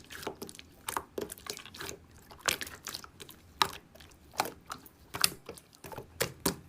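Slime being squeezed and pressed by hand, making irregular sticky clicks and small wet pops.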